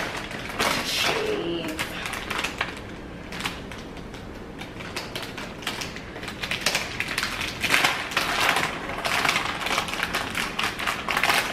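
Plastic bag of shredded cheese crinkling as it is opened and handled, in irregular crackly clicks and rustles that grow busier in the second half.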